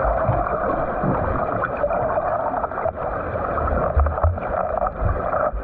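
Water churning and splashing from a swimmer doing butterfly stroke drills, with irregular low thumps of strokes in the water.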